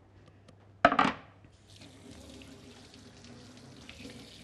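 A sharp knock just under a second in, then a kitchen tap running steadily, with hands being washed under it.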